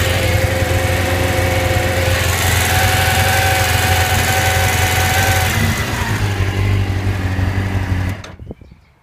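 A Suzuki GSX-R750's liquid-cooled inline-four engine idles part-warm, with the ticking noise whose cause is in question. The engine is switched off about eight seconds in and dies away.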